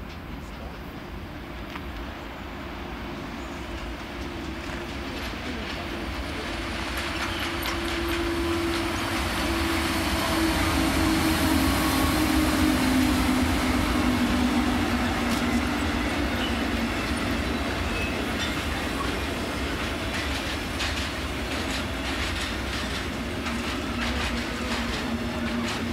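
Red SBB electric locomotive hauling a freight train approaches and passes, growing louder to a peak about halfway through. Its electric hum drops in pitch as it goes by. The rumble of the wagons follows, with clicks of wheels over rail joints near the end.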